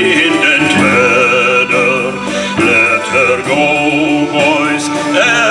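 A men's shanty choir singing a shanty in chorus, with instrumental accompaniment.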